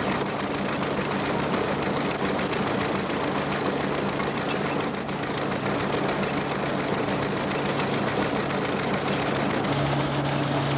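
Vintage stationary engine running steadily under load, a constant engine hum with a busy mechanical clatter, as it drives a belt-powered grain mill.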